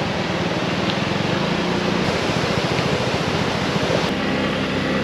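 Water rushing steadily over a flooded low-water road crossing, with a small scooter engine idling underneath.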